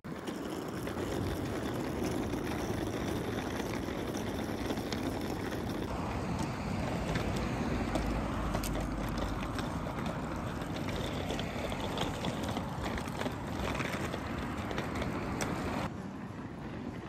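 Steady outdoor traffic rumble with wind buffeting the microphone and a few faint handling clicks. The sound shifts abruptly about six seconds in and again near the end.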